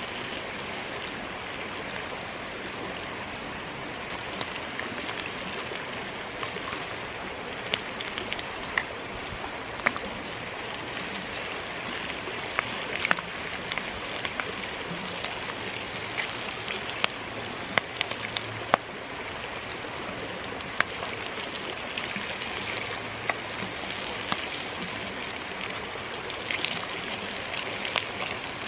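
Bacon sizzling in a frying pan over a wood-burning camp stove, with irregular sharp pops of spitting fat, against a creek flowing steadily behind.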